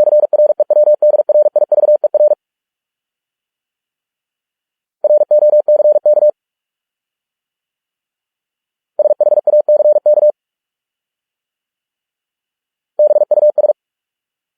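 Morse code at 45 words per minute: a single steady beep keyed on and off in fast dots and dashes, spelling four English words, each a short run of rapid beeps separated by about three seconds of silence.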